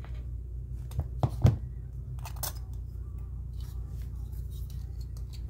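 Small pliers working the thin metal tabs of a 1977 Corvette dash clock's case: three sharp metal clicks about a second in, the last the loudest, then a short scrape and a few lighter ticks. A steady low hum runs underneath.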